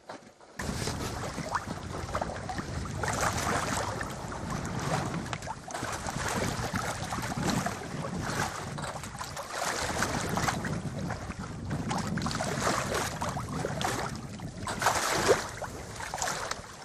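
Wind rushing over the microphone and sea water washing against a small sailboat's hull, rising and falling, with a louder swell near the end.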